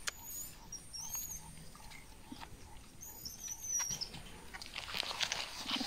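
Vervet monkeys moving about and drinking at a feeding cage: scuffling and rustling with scattered clicks, louder near the end, and a few short high chirps in the first few seconds.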